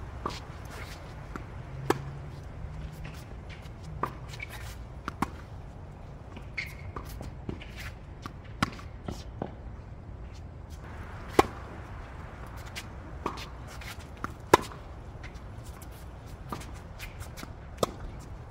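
Tennis rally on a hard court: sharp pops of racket strings hitting the ball and the ball bouncing, coming every one to three seconds, with sneakers scuffing and shuffling on the court between shots.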